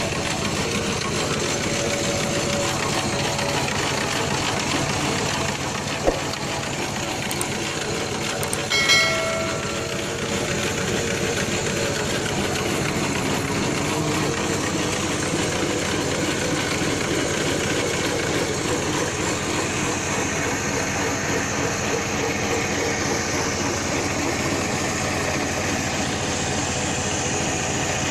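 Homemade line boring rig, driven by a modified electric motor, running steadily as its boring bar cuts a worn excavator bucket pin bore back to size. A sharp tick comes about six seconds in, and a short metallic ring about nine seconds in.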